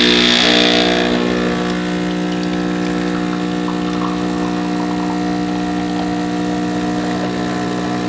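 Mr. Coffee ECMP50 espresso machine's 15-bar pump buzzing steadily as it pushes hot water through a double shot of coarse-ground coffee, with a hiss that fades away over the first second.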